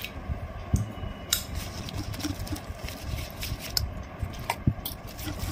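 Wire whisk working thick moong-and-urad dal batter in a stainless steel bowl, scraping with irregular sharp clicks of the wires against the metal.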